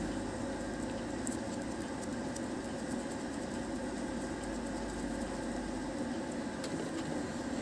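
Steady low hum of workshop machinery running, with a few faint light scratches as a small brush spreads glue on a sneaker's rubber sole.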